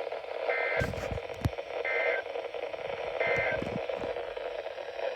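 NOAA Weather Radio receiver playing the EAS end-of-message code: three short, identical bursts of two-tone digital data chirps, about 1.4 seconds apart. The end-of-message code marks the end of the severe thunderstorm warning. Steady radio static hiss runs under the bursts.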